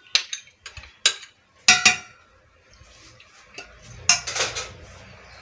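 A spoon knocking and scraping against a metal or ceramic bowl as yogurt is spooned onto chicken for a marinade: several sharp clinks in the first two seconds, one ringing briefly, then a short burst of scraping about four seconds in.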